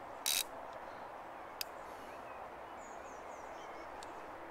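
Quiet outdoor background with faint bird chirps about three seconds in. Just after the start comes a brief rasp from the click-and-pawl fly reel, and a single click at about a second and a half.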